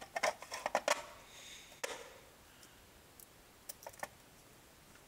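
Sharp knocks and clicks as a brick is set down on top of a 3D-printed plastic mousetrap and handled: a quick cluster at first, a single knock about two seconds in, and two more near the end, with a faint rustle between.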